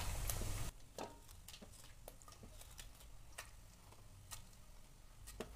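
Whole spices, cumin seeds and bay leaves, tempering in hot oil in a steel pot: faint, scattered crackles and ticks, a few each second.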